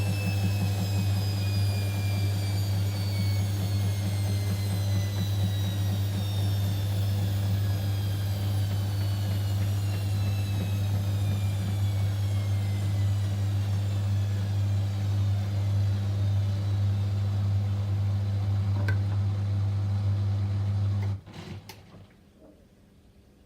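Whirlpool washing machine winding down from its 400 rpm spin on a delicate cycle: a steady deep hum with a motor whine that falls slowly in pitch as the drum slows. The machine stops about three-quarters of the way in, with a couple of faint clicks, and the sound drops away almost to silence.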